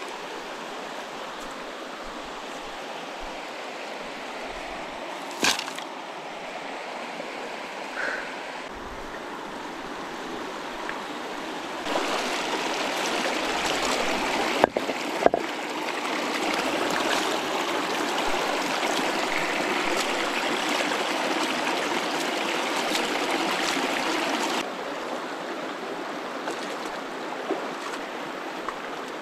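River water flowing steadily. Its loudness steps up about a third of the way in and drops back near the end. A few sharp clicks stand out: one early, two close together around the middle.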